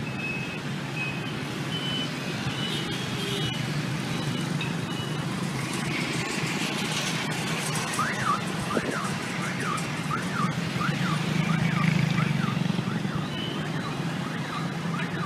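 Steady city street traffic, with a vehicle alarm sounding a fast up-and-down wail, about two sweeps a second, for several seconds from about eight seconds in.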